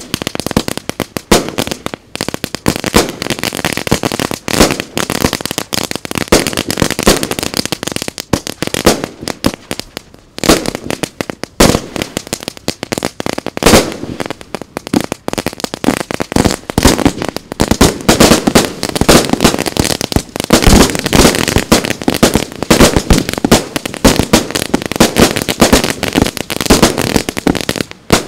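Aerial fireworks going off in a rapid, continuous barrage of bangs, many bursts overlapping, with only brief lulls.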